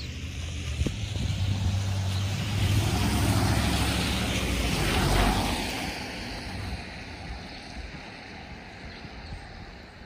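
A motor vehicle driving past, its engine hum and road noise building to a peak about five seconds in and then fading away.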